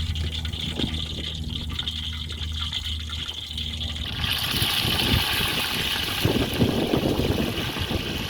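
Fish frying in hot cooking oil: a steady sizzle that grows much louder about four seconds in, with dense crackling and spitting.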